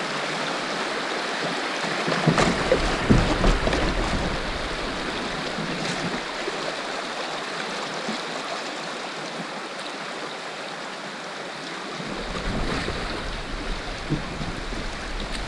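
Fast, shallow river water rushing over a rocky riffle, with water slapping and splashing against a kayak's hull as it runs through. Louder, rougher stretches with a low rumble come about two to four seconds in and again from about twelve seconds on.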